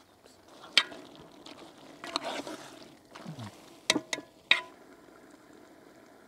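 A few sharp knocks with a brief ringing tone, one about a second in and three close together near the fourth second, with a short scraping rustle between them.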